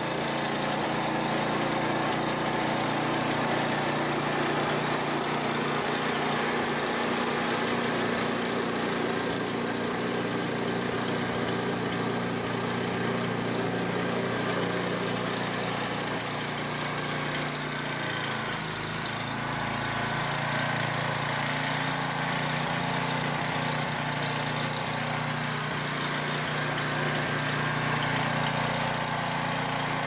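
Ariens two-stage snowblower engine running steadily under load while the machine throws deep snow, easing slightly for a moment a little over halfway through.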